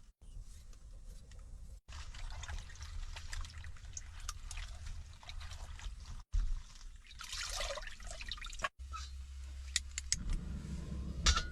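Water pouring and trickling, among small clicks and knocks of food preparation.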